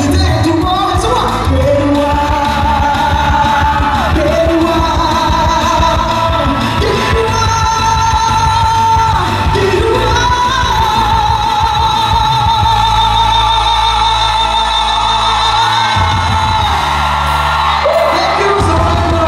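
Male singer singing live with a band through an arena sound system, holding long notes with vibrato, the longest from about ten to sixteen seconds in.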